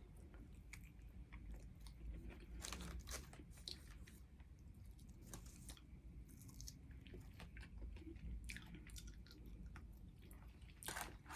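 A person chewing and crunching food close to the microphone, faint, with scattered crisp crunches between softer chewing.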